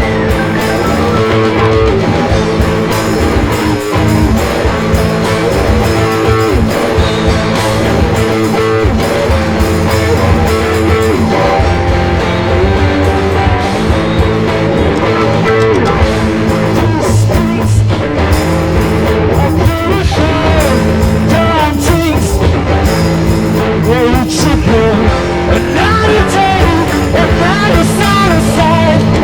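Live rock band playing loud, with electric guitar to the fore over bass and drums; bending, wavering guitar lines come in about halfway through.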